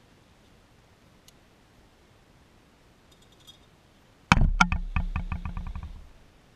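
A person blowing hard on smouldering charcoal in a small flowerpot grill, close to the microphone. About four seconds in, a sudden loud gust of breath comes with a quick run of clicks that speed up and die away within about two seconds.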